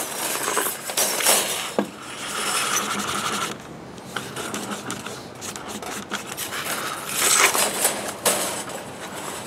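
Steel blade of a 100-foot tape measure sliding out of its case through an oily rag: an uneven rubbing, scraping slither with scattered clicks and ticks from the reel.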